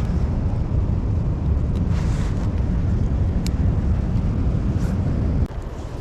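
Strong wind buffeting the microphone, a heavy low rumble that eases abruptly about five and a half seconds in.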